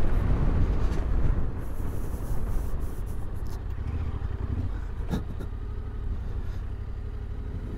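Yamaha Ténéré 700's parallel-twin engine running at low revs as the motorcycle rolls slowly over sand and slows to a stop, with a low rumble that fades as it comes to idle. A single sharp click about five seconds in.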